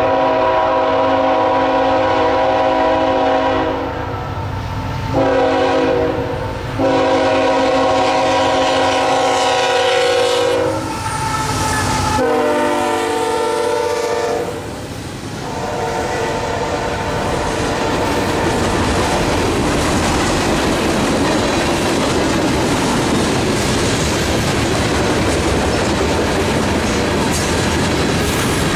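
A train horn sounds a series of long and short blasts, then the train rolls past with a steady rumble and clatter of wheels on the rails.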